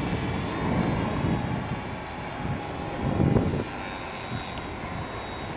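Radio-controlled Skytrainer model airplane flying overhead, its motor and propeller giving a faint steady whine. Low rumbling gusts, most likely wind on the microphone, run underneath and are loudest about three seconds in.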